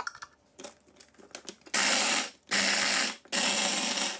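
Bosch electric mini chopper run in three short pulses about two-thirds of a second each, grinding biscuits with softened butter into crumbs, after a few light clicks as the motor unit is seated on the bowl.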